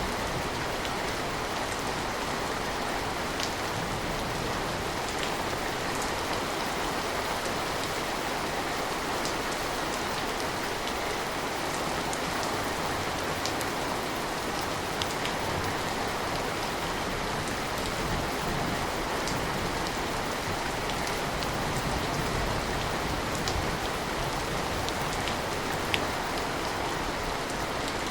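Steady rain falling, an even hiss with scattered single drops ticking sharply, one of them louder about 26 seconds in.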